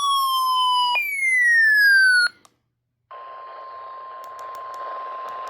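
Two loud falling electronic tones, the second starting higher and cutting off sharply, then a brief silence. After that comes NOAA Weather Radio's steady 1050 Hz warning alarm tone, heard through the hiss and static of distant radio reception; it marks the start of a warning broadcast.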